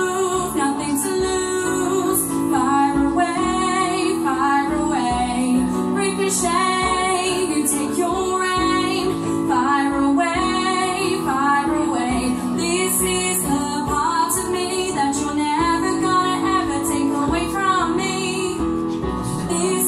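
A woman sings a pop medley live into a microphone, her voice moving through short phrases over steady held chords of accompaniment.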